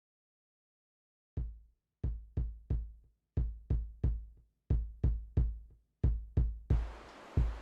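Silence for about a second and a half, then a music track opens with a lone kick drum playing a repeating figure of three quick beats. A hissing texture joins under it near the end.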